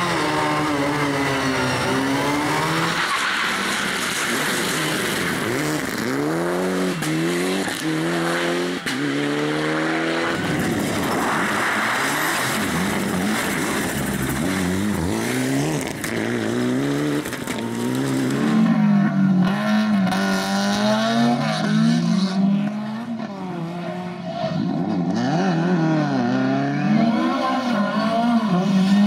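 Rally cars, Lada saloons and a Mitsubishi Lancer Evolution, taken one after another, with their engines revving hard and dropping away again and again through gear changes and lifts as they slide through corners. Tyres squeal at times.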